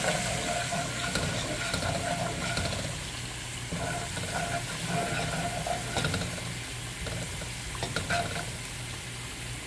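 Chopped garlic sizzling in oil in a stone-coated frying pan, stirred with a wooden spoon that scrapes and taps against the pan with small clicks.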